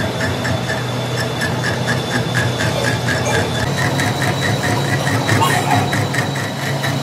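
Metal lathe running with the trunnion shaft turning, a steady motor hum with a regular ticking about four times a second. About four seconds in, the pitch of the hum shifts slightly.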